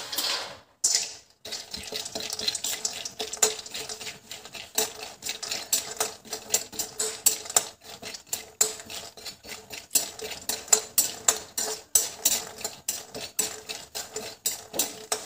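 A metal spoon stirring and scraping almonds around a steel kadhai of hot ghee, with quick repeated clinks and scrapes starting about a second and a half in.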